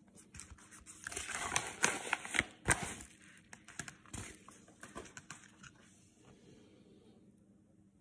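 Yellow padded bubble mailer being torn open and handled: a run of crinkling and tearing with sharp crackles, loudest in the first three seconds and dying away after about five seconds.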